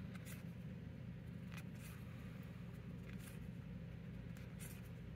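Pokémon trading cards being flipped through one by one in the hand: faint, soft slides of card over card about once a second, over a steady low hum.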